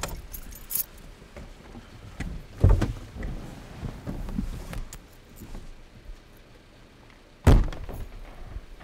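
Pickup truck's driver door as the driver gets out: two heavy thunks about five seconds apart, the second a door slam, with faint rustling of clothes and seat between.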